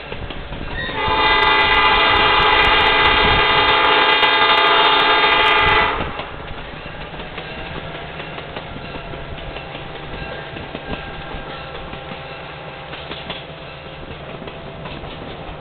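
Diesel locomotive air horn sounding one long blast of about five seconds, given at a whistle post ahead of a grade crossing. The train's steady running rumble carries on beneath and after it.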